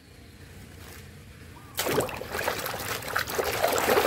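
Water splashing and sloshing as a hand swishes toys around in a plastic basin of muddy water, starting suddenly about two seconds in after a quiet stretch.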